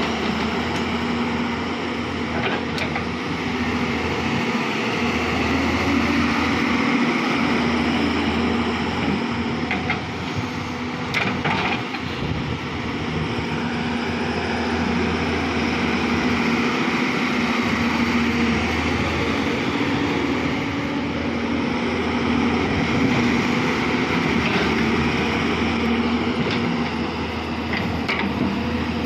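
Hyundai 210 excavator's diesel engine running steadily, with a few short clanks from the machine at work.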